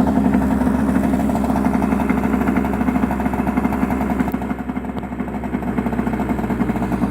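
2000 Hyosung Sense 50 scooter's small two-stroke engine idling steadily just after a cold start, on its electric automatic choke that is meant to hold the idle a bit high. The note sags slightly about four and a half seconds in and picks back up a second later.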